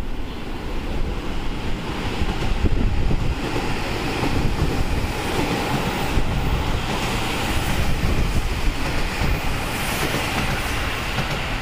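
Seibu 001 series Laview limited express electric train passing at speed: a steady rushing noise of wheels on rail and moving air.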